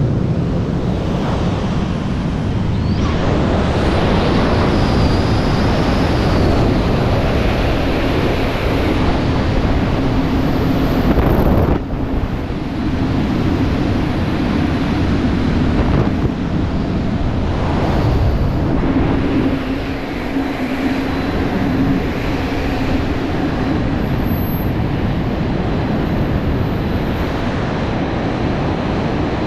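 Rushing freefall wind buffeting the microphone of a helmet-mounted camera during a skydive. A faint steady low tone comes and goes twice within the rush of air.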